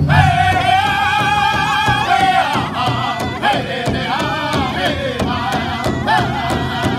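Powwow drum group singing a chicken dance song: high, wavering voices in unison over a large hide drum that several singers strike together in a quick, steady beat. A long high note is held for the first couple of seconds before the melody falls.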